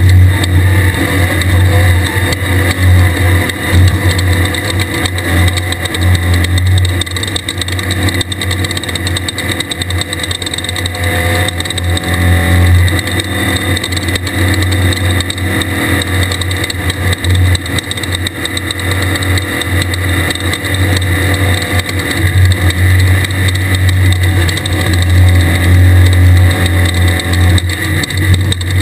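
A 1600-class desert race buggy driving at speed, its air-cooled Volkswagen engine running steadily under load amid constant road and wind noise.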